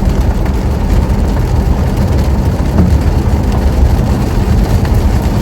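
Steady low rumble of road, tyre and engine noise heard inside a car's cabin while driving on a rain-soaked road in a downpour.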